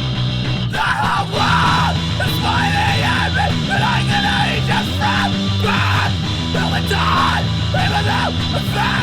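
A loud rock band track: sustained distorted chords, with a yelled vocal coming in about a second in and continuing in repeated phrases.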